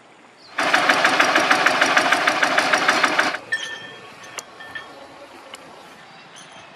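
A small engine running with a fast, even knocking beat, loud for about three seconds, starting and stopping abruptly. Faint short chirps and a few clicks follow.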